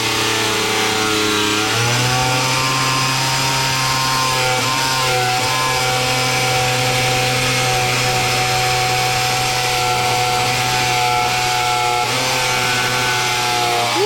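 Angle grinder wet-cutting a large porcelain tile, its motor whining steadily over the hiss of the blade. The pitch steps up about two seconds in and then holds.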